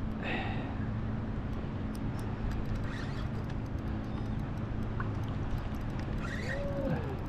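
Spinning reel's drag buzzing steadily as a hard-pulling jack crevalle strips line, under a constant rush of wind and lapping water.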